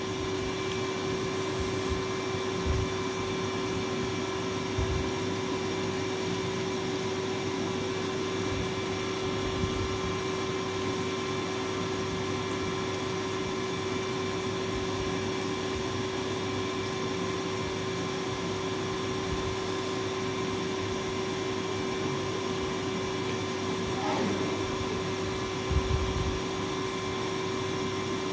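A steady mechanical drone with a constant whine, like an appliance motor running, broken only by a few faint low bumps, the clearest one near the end.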